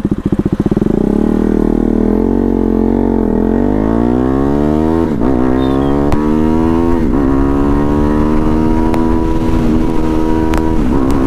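Motorcycle engine pulling away from a standstill and accelerating hard. Its pitch climbs in each gear and drops at each upshift, about every two seconds, as the bike reaches about 96 km/h.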